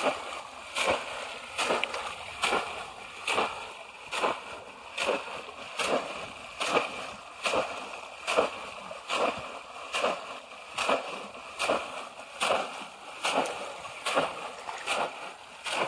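Bamboo polo fish traps being plunged again and again into shallow pond water. The splashes come in a steady rhythm, a little more often than one a second.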